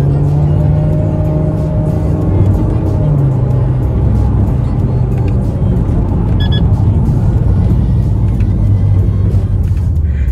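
Subaru Forester XT's 2.0-litre turbocharged boxer engine running on the move through an aftermarket sport exhaust with its valve closed, a steady deep exhaust note that still carries a little bass drone even closed. Music plays along with it.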